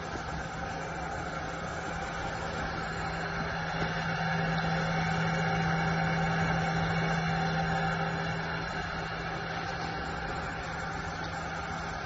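Steady hum of an aspirating smoke detector's air-sampling fan drawing air through the sampling pipes, with a low tone and fainter higher tones; it grows louder in the middle as the unit is approached.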